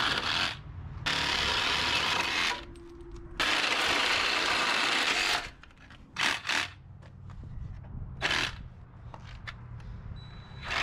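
Cordless power tool run in three bursts of about one and a half to two seconds each on the rusty steel chassis, followed by a few short, quieter bursts.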